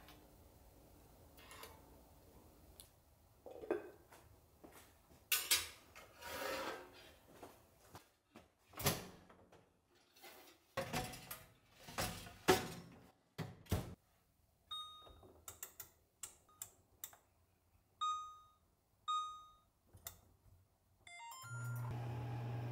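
Dishes and utensils clatter and knock, then an oven's control panel beeps at several button presses. Near the end a short rising chime plays and the light-wave oven starts running with a steady low hum.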